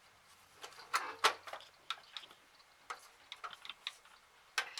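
Irregular light clicks and taps of small tools and screws on the Xbox 360's casing as it is being taken apart, two sharper clicks about a second in.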